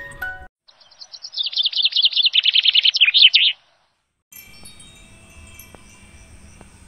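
The last notes of an intro jingle, then a small bird's fast chirping trill for about three seconds, the loudest part. After a short gap, a hanging metal-tube wind chime rings softly with long, sustained tones and a few light strikes.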